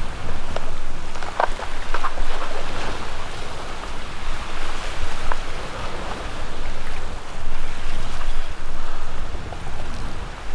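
Wind buffeting the microphone over surf washing against the jetty rocks: a steady rushing with a deep rumble that swells and eases, and a few light clicks in the first couple of seconds.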